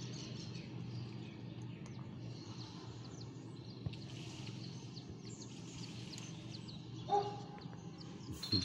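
Outdoor background: a steady low hum with faint, scattered bird chirps, and one short pitched call about seven seconds in.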